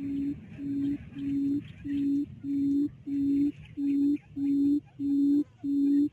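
Buttonquail's low hooting call: short notes all at one pitch, about one and a half a second. They get louder over the first few notes, then hold steady.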